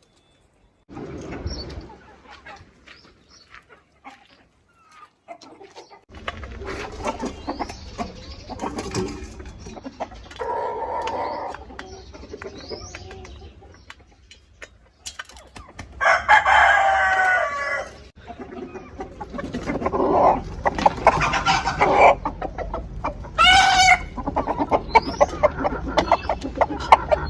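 Chickens calling: clucking and short high peeps, with a long crow of about two seconds roughly two-thirds of the way through and another shorter call near the end. A low rumble runs under them from about six seconds in.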